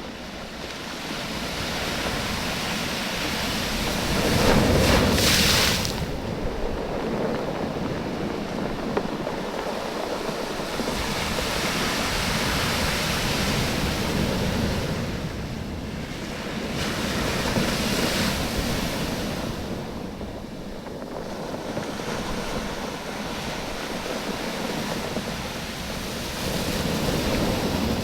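Sea waves surging in and draining back over a beach of smooth oval stones, the stones rattling and knocking together as the water ebbs and flows. It swells and fades every few seconds, with the biggest wave, a splash, about five seconds in.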